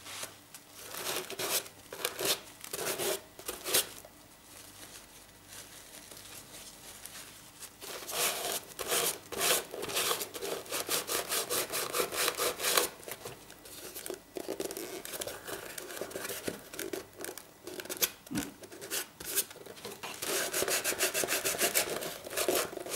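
Hands rubbing and pressing down glued paper onto a cardboard box, quick back-and-forth strokes in several bursts with quieter stretches between, smoothing it so the glue takes everywhere.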